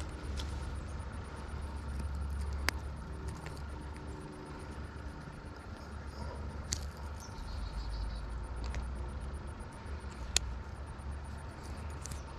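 A low, steady engine-like rumble, with three sharp clicks spread through it.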